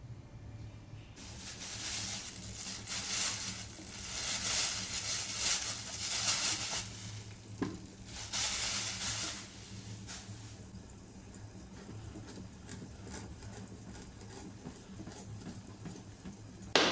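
Food sizzling in hot oil in a pan, starting suddenly about a second in and swelling in uneven waves, then settling to a light crackle after about ten seconds. A sharp knock comes near the end.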